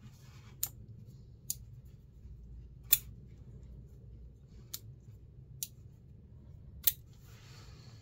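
Brass-handled CIVIVI Elementum Mini folding knife clicking as its blade is flipped open and snapped shut: six sharp clicks at uneven intervals, the loudest about three seconds in. A soft rustle follows near the end.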